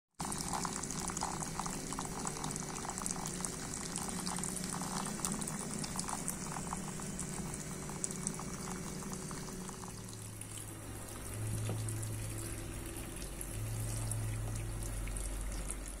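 Small tabletop fountain: a thin stream of water falling from a clear tube into a shallow dish of pebbles, splashing and bubbling steadily. A low hum comes in about ten seconds in.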